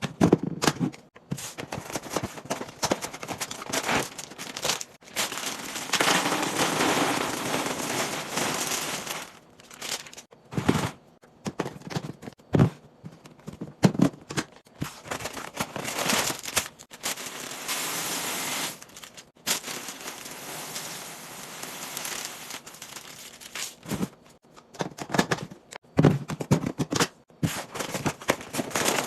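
Food packaging and containers being handled in restocking a fridge or pantry: plastic crinkling and tearing, with many sharp clicks and knocks of items and lids set down.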